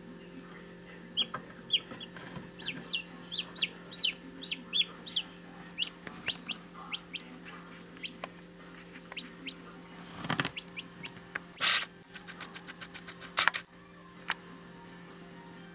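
Newly hatched Jubilee Orpington chick peeping: a quick run of short, high, falling peeps over the first seven seconds or so, then a few short scraping noises. A steady electrical hum runs underneath.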